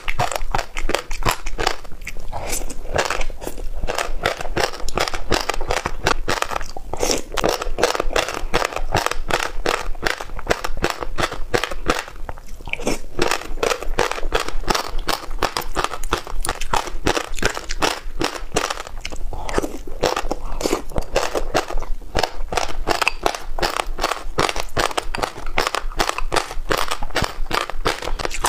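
Chewing a mouthful of passion fruit seeds mixed with yogurt and red dragon fruit: a dense, continuous run of small crunches and crackles.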